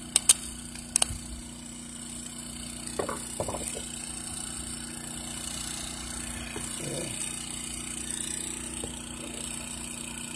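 A few sharp clicks and small taps of a screwdriver and fingers working at a generator's plastic control panel and switch, over a steady low hum.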